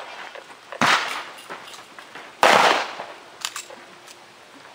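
Two gunshots at a shooting range, about one and a half seconds apart, each trailing off in echo. A few faint sharp ticks follow near the end.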